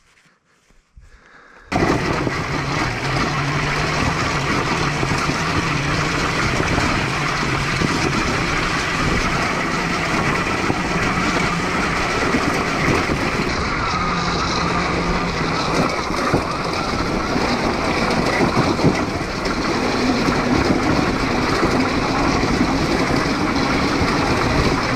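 A homemade electric dirt bike being ridden along a leaf-covered dirt trail: a loud, steady rushing of wind on the helmet camera's microphone mixed with tyre noise, with no engine note. It starts suddenly a couple of seconds in, after a short quiet stretch.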